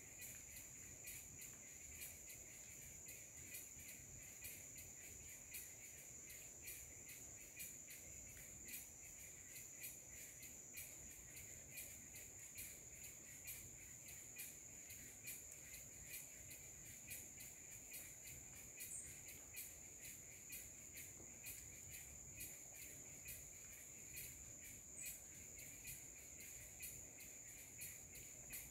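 Faint, steady high-pitched trilling of forest insects, pulsing rapidly and evenly, with a quieter lower buzz beneath it.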